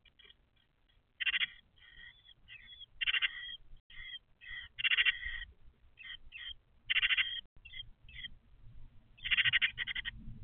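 Great tit nestlings begging in the nest box as they are fed: short bursts of high calls about every second, the loudest roughly every two seconds.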